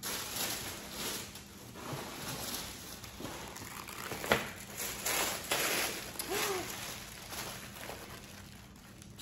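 Tissue paper rustling and crinkling as a wrapped handbag is lifted from a cardboard box and unwrapped, with one sharp click about four seconds in.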